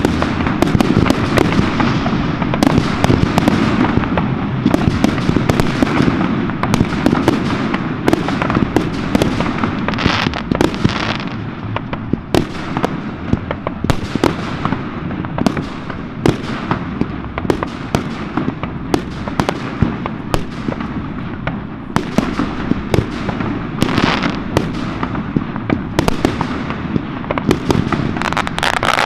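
Aerial fireworks display heard from close to the launch site: shells bursting in a rapid, uneven string of sharp bangs over a continuous rumble and crackle.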